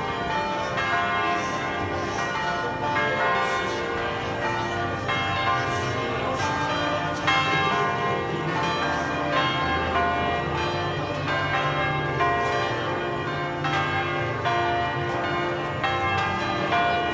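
Several church bells ringing together in a continuous peal, their strokes overlapping into a dense, sustained clangour.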